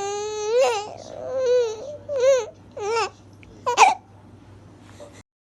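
Baby fussing: one long whiny cry, then four shorter wavering cries about a second apart. The audio cuts to silence near the end.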